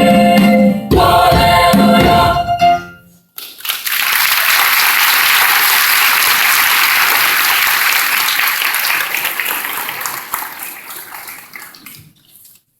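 A school choir holds the final chord of a song and cuts off about three seconds in; after a brief pause the audience applauds for about eight seconds, and the applause stops suddenly near the end.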